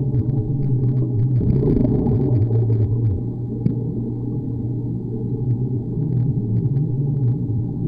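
Underwater ambience in a swimming pool, picked up by a submerged microphone: a steady low rumble with a hum that wavers in pitch, and scattered faint clicks.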